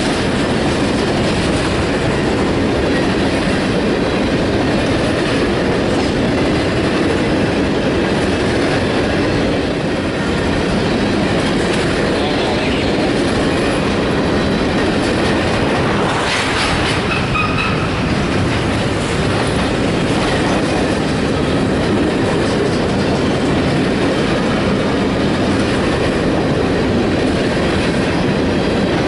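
Empty grain cars of a freight train rolling past, with a steady, loud noise of steel wheels on the rails. A brief, faint wheel squeal comes about halfway through.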